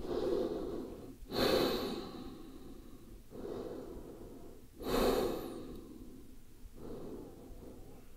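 A woman breathing slowly and audibly, with two strong breaths about a second in and about five seconds in and a fainter one between them.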